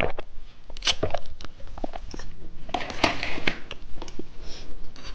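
Close-up eating sounds of someone biting and chewing ice cream: scattered short mouth clicks and bites, with a denser stretch of noise about three seconds in.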